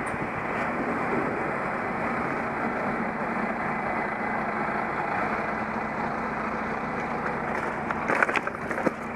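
Steady rush of road and traffic noise from a moving bicycle. About eight seconds in comes a short cluster of sharp knocks and clatter: the rider, unable to unclip from his SPD clipless pedals, topples over with the bike.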